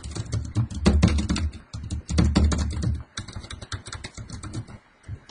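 Fast typing on a computer keyboard: quick runs of clicking keystrokes with a low thudding under the busiest runs, stopping shortly before the end.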